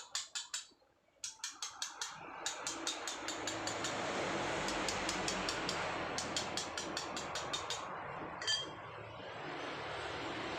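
Hand carving of soft paras jogja stone with a hammer and chisel: a quick run of light metallic taps, several a second, with a short pause about a second in. The taps stop about eight seconds in, followed by a single ringing clink, over a steady background hiss.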